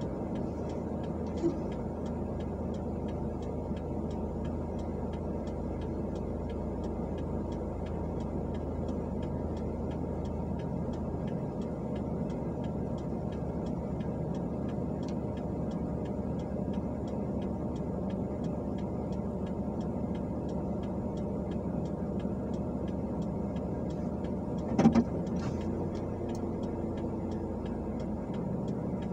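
Car idling while stopped, a steady low hum heard from inside the cabin, with the even ticking of the turn-signal indicator throughout. A brief louder knock comes a few seconds before the end.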